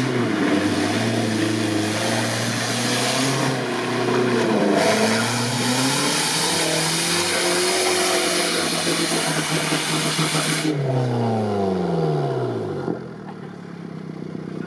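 Off-road 4x4 engine revving hard under load, its pitch rising and falling, with a heavy rushing noise over it. About eleven seconds in the revs fall away and it settles to a quieter run.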